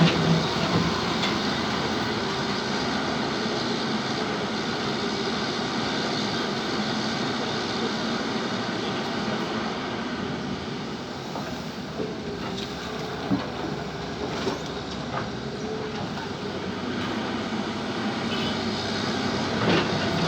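Excavator at work: its engine runs steadily under a constant mechanical noise, with a few short knocks about twelve to fifteen seconds in.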